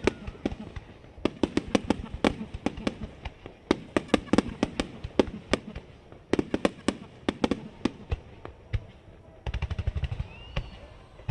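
Aerial fireworks going off in rapid salvos of sharp bangs and crackling pops, several shots a second in each burst, with short lulls between salvos and a faint rising whistle about ten seconds in.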